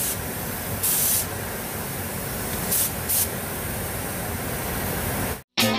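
Compressed-air paint spray gun hissing steadily as it sprays blue metallic base coat onto a car body panel, with brief louder bursts of hiss about a second in and twice near three seconds in. The hiss cuts off near the end and music begins.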